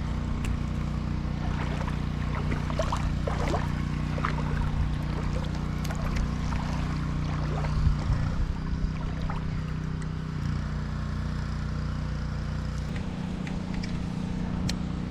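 A steady, low engine hum that shifts slightly near the end, with short bird chirps early on and a few light clicks.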